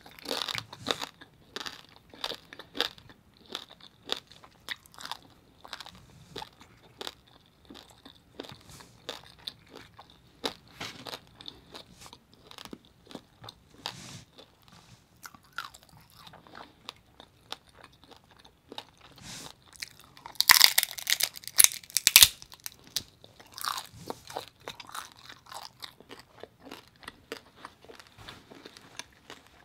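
Close-up chewing and crunching of crispy roasted pig head (lechon), with irregular crisp bites throughout and a burst of louder crunches about two-thirds of the way in.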